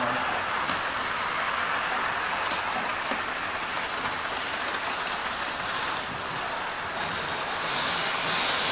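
Model railway trains running on the track: a steady whirring of their electric motors and wheels on the rails, a little louder near the end.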